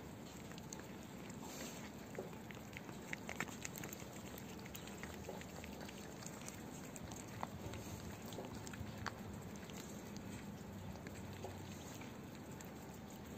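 Two tabby cats, a mother and her kitten, chewing and licking up soft cat food: irregular small wet clicks and smacks over a steady background hiss.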